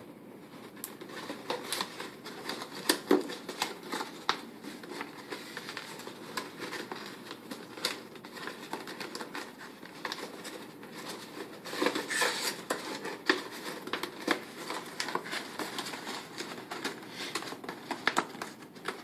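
Stiff cardstock pieces of a paper IQ lamp rustling, crinkling and clicking as hands bend and slot them together, with irregular sharp snaps of card, a few louder ones about 3 seconds in and again around 12 seconds.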